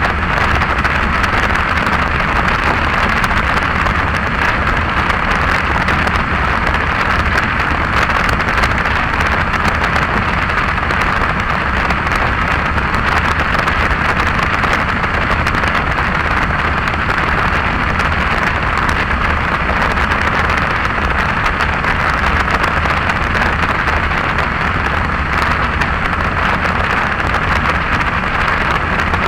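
Heavy wind noise on the microphone while riding on the road: a steady, loud rushing that buries everything else.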